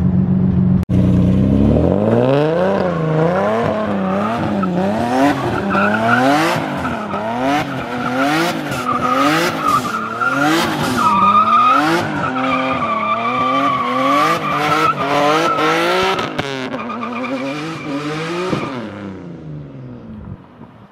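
Nissan 370Z's 3.7-litre V6 revving up and down over and over, about once a second, as the rear tyres spin and squeal through drift donuts. The squeal is strongest in the middle, and the sound fades away near the end.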